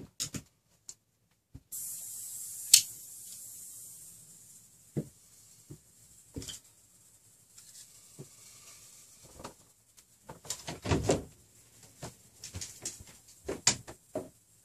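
Clicks, knocks and light clatter of tools and small parts being handled and set down on a tabletop, with a soldering iron and a spool of solder placed on the bench. About two seconds in a hiss starts with one sharp click and fades away over a few seconds; the densest clatter comes near the end.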